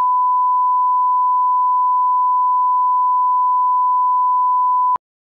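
1 kHz test tone accompanying SMPTE colour bars: a single pure, steady beep held at one pitch and level for about five seconds, cutting off abruptly near the end.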